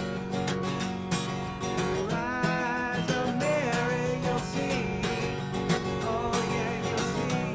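Acoustic guitar strummed steadily, playing a song, with a wavering melody line over it in the middle.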